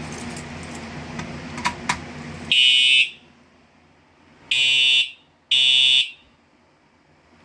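Fire alarm horn strobe sounding three short, loud blasts: one about two and a half seconds in, then two close together near the end. This is a device being tripped during a walk test. Rustling handling noise and two clicks come before the first blast.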